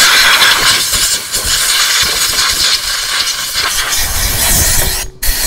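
Air die grinder with a tungsten-carbide burr running at full speed and grinding metal on a scooter clutch, a loud steady hiss with grinding noise. It cuts off about five seconds in, then gives one short burst before stopping.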